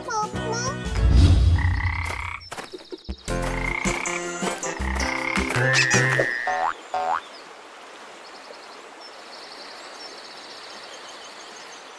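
Frogs croaking in quick pitched calls, with a loud low thump about a second in. About seven seconds in this gives way to a quieter steady hiss with faint high chirping.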